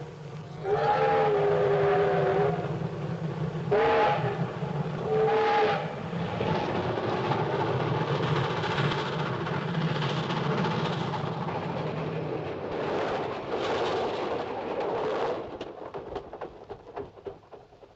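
Cartoon sound effect of a steam train whistle sounding several notes at once: one long blast, then two short ones. A steady rushing noise of the train running follows and dies away near the end.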